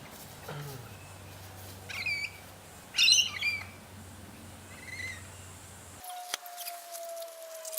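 Birds calling outdoors: clusters of short, high chirping calls about two and three seconds in and a fainter one near five seconds, over a low steady hum. At about six seconds the background changes abruptly to a quieter one, with a faint, slowly falling tone and a few clicks.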